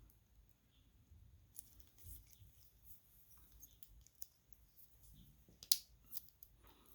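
Faint clicks and handling of a Smiths Everest PRS-25 watch bracelet being worked closed, with a sharp click near the end as the fold-over clasp snaps shut. The clasp hook has been tightened, so it takes effort to close.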